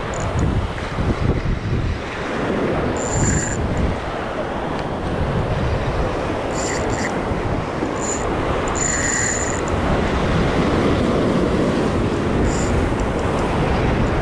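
Surf breaking and washing over rocks, with wind buffeting the microphone: a loud, steady rush of noise. Several brief high-pitched buzzes cut through it at intervals.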